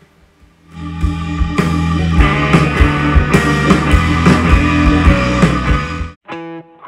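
Rock music with a steady drum beat and guitar, starting about a second in. Near the end it cuts off briefly and gives way to single plucked electric guitar notes.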